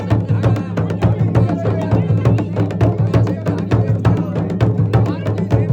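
Garhwali dhol and damau drums playing a fast, dense rhythm of strokes over a steady low drone.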